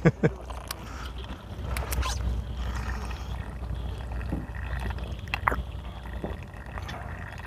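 A fishing boat's steady low rumble, with water sloshing and dripping and a few small knocks scattered through.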